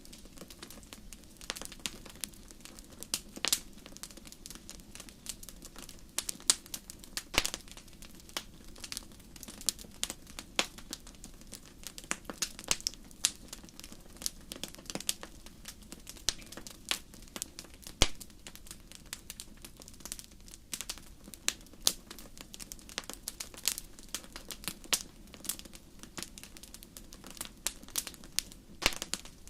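Fire crackling in a fireplace: irregular sharp pops and snaps, several a second, over a faint steady low background.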